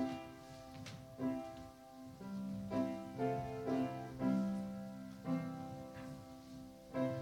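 Piano playing a slow invitation hymn, chords struck about once or twice a second and dying away between strikes.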